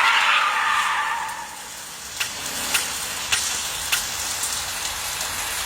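A car's tyres sliding with a loud hiss that fades out within about a second and a half, followed by a series of sharp clicks about every 0.6 s.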